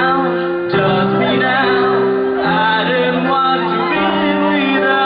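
A slow love song sung over held backing chords that change every second or two.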